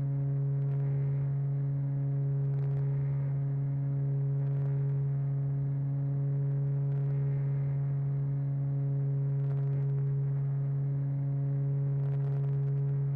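RC model airplane's motor and propeller heard from on board, a steady humming drone that holds one pitch at cruising throttle.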